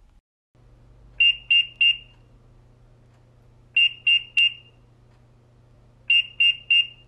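Temperature-screening kiosk sounding its alarm: three groups of three short, high-pitched beeps about two and a half seconds apart, over a faint steady hum. It signals a temperature reading over the preset threshold.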